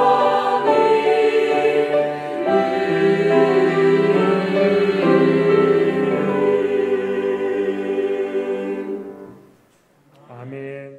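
Mixed church choir singing the closing words of a hymn in Korean, holding the final chord until it dies away about nine seconds in.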